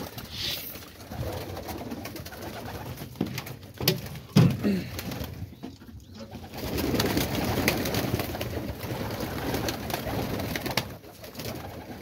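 Domestic pigeons cooing while they feed, with scattered sharp clicks.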